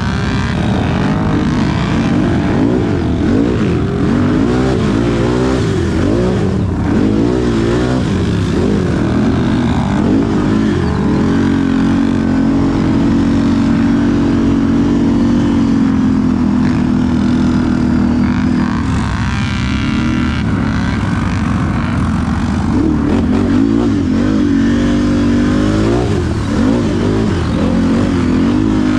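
Can-Am ATV engine revving up and down over and over, held at steady high revs for several seconds in the middle before rising and falling again.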